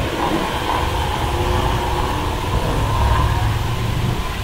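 A car engine running steadily.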